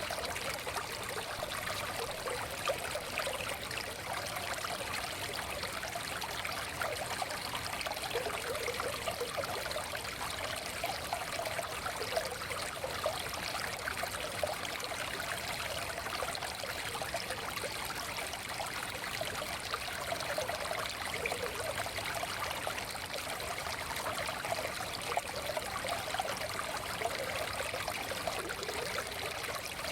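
Forest stream flowing steadily over stones, a continuous babbling and trickling of water.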